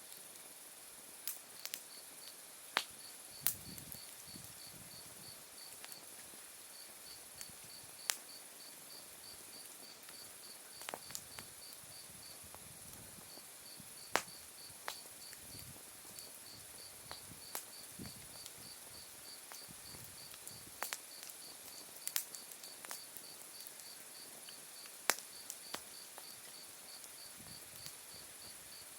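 Open wood fire crackling, with sharp pops of burning wood scattered irregularly through it, over a chorus of autumn crickets: a continuous high trill and a fast, evenly pulsing chirp. A few soft low rushes of flame rise and fall between the pops.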